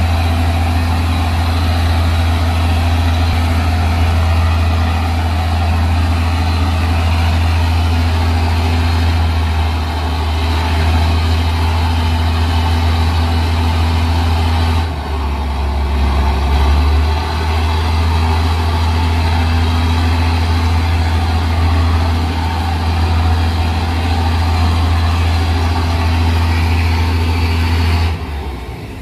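Heavy ship's engine running steadily with a deep, constant drone, over the rush of water churning between the hulls. The drone shifts about halfway through and the sound dips briefly near the end.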